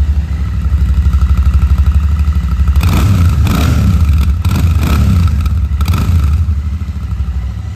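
Royal Enfield Shotgun 650's 648 cc parallel-twin engine idling, then revved in several quick throttle blips from about three seconds in, settling back to idle near the end.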